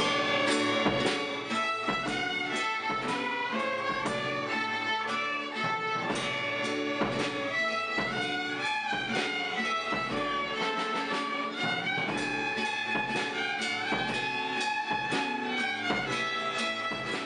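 Children's violin ensemble playing a tune in unison, backed by an electronic keyboard and a drum kit keeping a steady beat.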